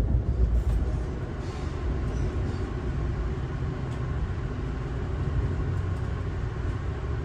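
Amtrak Piedmont passenger train coach in motion, heard from inside the car: a steady low rumble, a little louder for the first second and then even.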